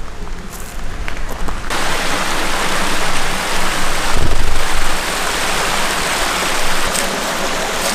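Spring-fed creek water rushing and splashing over rocks, a steady dense rush that comes in abruptly about two seconds in. A brief low rumble sits under it a little past the middle.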